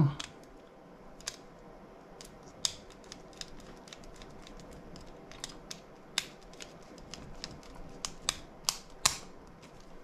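Small precision screwdriver tightening the wire terminal screws on a wireless alarm sensor's circuit board: scattered, irregular light clicks and ticks of the driver and plastic parts, over a faint steady hum.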